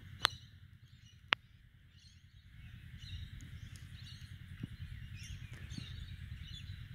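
Open-air ambience: a steady low wind rumble on the microphone, with faint birds chirping in the background. Two sharp clicks come in the first second and a half.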